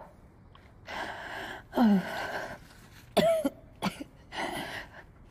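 A woman coughing a few times, with heavy, effortful breaths between the coughs.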